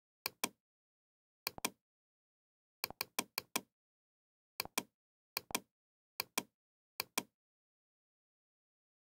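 Computer mouse button clicks, mostly in quick press-and-release pairs, about eight times at irregular intervals, with a faster run of clicks around three seconds in.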